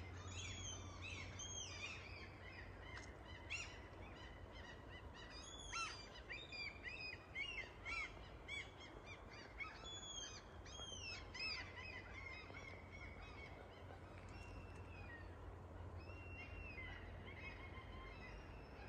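Small birds singing and chirping, many short high whistled notes, busiest in the first two thirds and thinning out later, over a faint steady low rumble.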